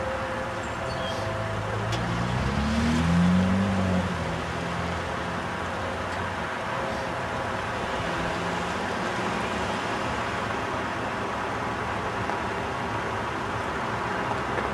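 Steady road traffic noise, with a motor vehicle accelerating about two seconds in: its engine pitch rises, loudest around three seconds, and drops away about four seconds in.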